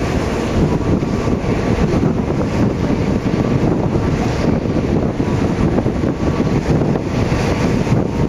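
Wind buffeting the microphone over the steady running noise of a paddle steamer under way, a dense, unbroken rumble with no distinct events.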